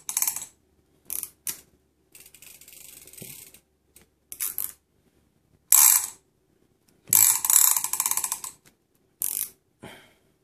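Shimano Tiagra 20A game reel's ratchet clicking in repeated bursts of rapid clicks as the reel is worked by hand. The longest burst comes about seven seconds in and lasts over a second. A quieter run of clicks falls between the loud bursts.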